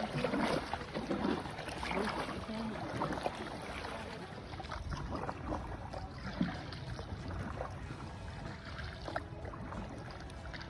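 Kayak paddles dipping into river water, with irregular splashes and drips.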